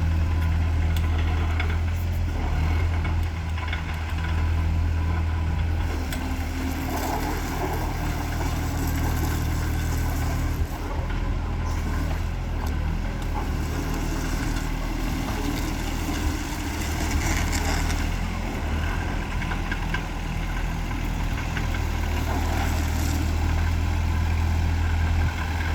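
Kobelco SK22-1E mini excavator's diesel engine running steadily, its note shifting about six seconds in.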